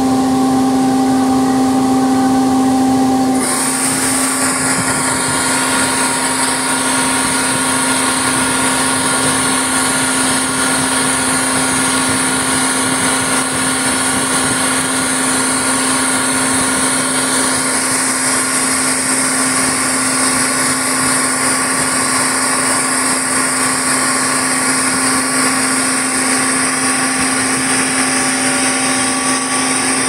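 Steady machinery running with a constant low hum from the Sany crane's engine and air-conditioning compressor. About three seconds in, a loud high whir comes on and holds almost to the end.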